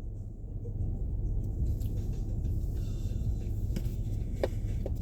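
Steady low rumble of a moving Nissan Pathfinder, road and engine noise heard from inside the cabin, with a few faint ticks near the end.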